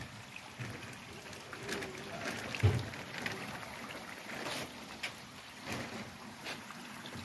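Pond water sloshing and trickling around opened plastic fish bags, with scattered light splashes and plastic crinkling, and one soft low bump about two and a half seconds in.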